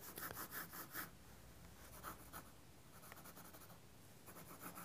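Faint pencil strokes on sketching paper: a quick run of short strokes in the first second, lighter drawing in the middle, then more short strokes near the end.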